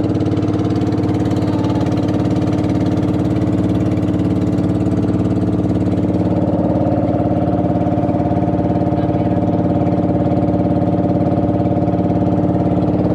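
Small passenger boat's engine running steadily underway, a constant drone with an even pitch.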